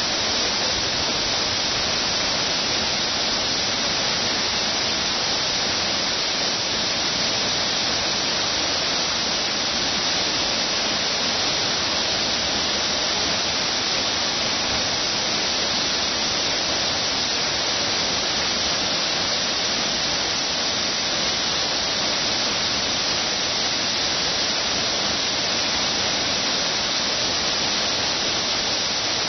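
Waterfall pouring steadily: an even, unbroken rush of falling water, heaviest in the hiss.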